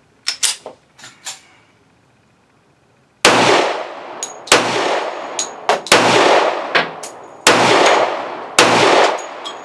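Five shots from a Smith & Wesson M&P 10mm pistol firing 230-grain hard cast rounds, about one and a quarter seconds apart. The gun cycles each round without a hitch. A few small handling clicks come before the first shot, and light metallic clinks sound between the shots.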